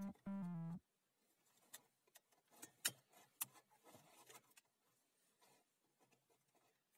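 Guitar music stops under a second in, leaving faint clicks and light handling noise of electrical cord and tools on a workbench, with one sharper click about three seconds in.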